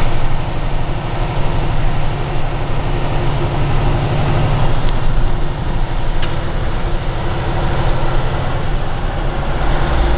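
A tractor-trailer's diesel engine running as the truck drives along a city street, heard from inside the cab with road noise. The engine note drops a little about halfway through.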